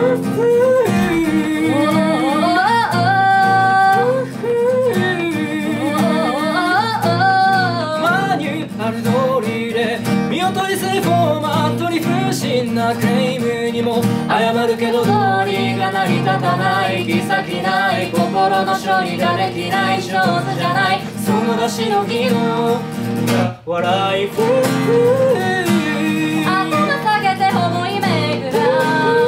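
Acoustic guitar played under a man and a woman singing a song together, the music breaking off for a moment about four-fifths of the way through.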